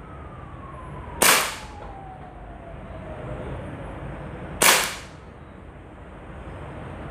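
Umarex Beretta M92 A1 CO2-powered BB pistol fired twice, about three and a half seconds apart. Each shot is a sharp crack as the all-metal slide cycles in full blowback, with a brief ring after it.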